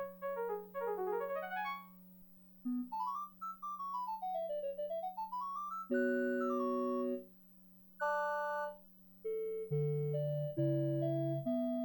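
Kawai FS640 arranger keyboard playing a piano-like voice: quick arpeggios, then a fast run that climbs and falls back, two held chords, and a slow melody line, with a steady low hum underneath.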